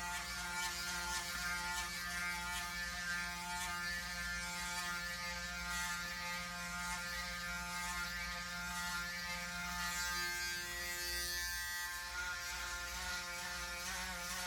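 Braun Series 9 Pro 9465cc electric foil shaver, fitted with a newly replaced motor, running with a steady buzz as it is worked over the scalp in a head shave.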